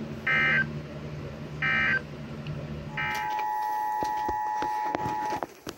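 Emergency Alert System data tones: three short, identical warbling digital bursts about a second and a half apart, the end-of-message code that closes an alert. They are followed by the EAS two-tone attention signal, a steady pair of high tones that runs about two seconds and cuts off shortly before the end, with clicks over it.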